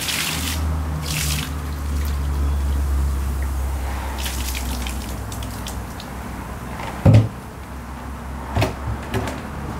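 Water gushing and splashing out of a tipped blue plastic drum, with splashes near the start and around four seconds in; the pour dies away after about six seconds. A loud thump about seven seconds in, then a lighter knock.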